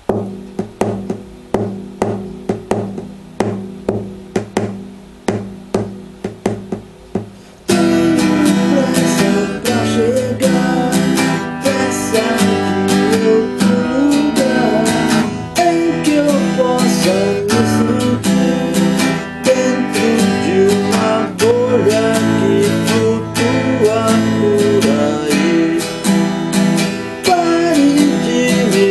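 A rock song played by a band: a guitar strummed alone in an even rhythm for about eight seconds, then more instruments and a singing voice come in together and the music gets fuller and louder.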